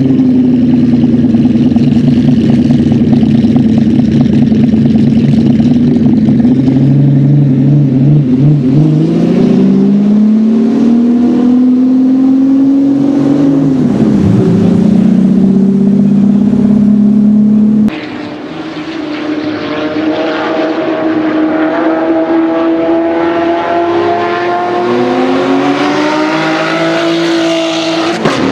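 Aston Martin V12 Zagato GT3's V12 engine, breathing through a Quicksilver exhaust, running steadily at first, then climbing in pitch as the car pulls away, with a short dip partway through. After a cut it is heard further off, accelerating with its note rising again through gear changes.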